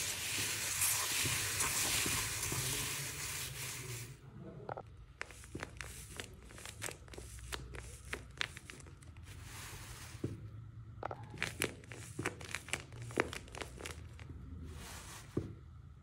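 Hands stirring through a tub of small foam beads, a dense rustling hiss for about the first four seconds. Then the scattered crinkles and crackles of a homemade paper squishy being squeezed and handled.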